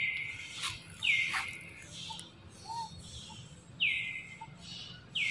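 A bird calling repeatedly, each call dropping sharply in pitch and then holding a steady high tone for about half a second, about four times, with a few sharp clicks between.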